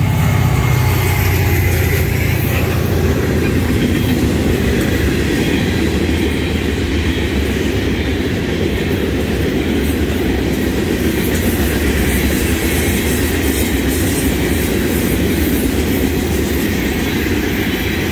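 A diesel-hauled freight train passing close by: the locomotives' engines are heard first, strongest in the opening seconds, then a long line of gondola and hopper cars rolls past with steady wheel-on-rail noise.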